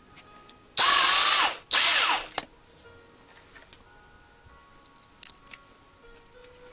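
Cordless drill run in two short bursts about a second in, the motor winding up and down, as it drills into the chassis of a 1:64 die-cast truck to take it apart. A few faint clicks of handling the small parts follow.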